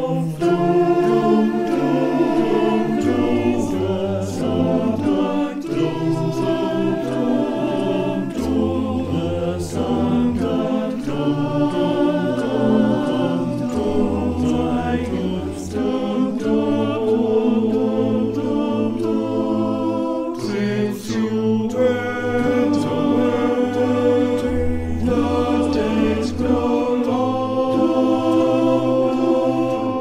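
Male voice choir singing a cappella in several parts: slow, sustained chords over long held bass notes. It is mixed together from singers recorded separately.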